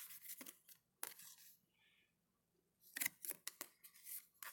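Baseball trading cards being handled and slid off a stack one after another: faint, short papery scrapes and flicks, with a brief pause near the middle.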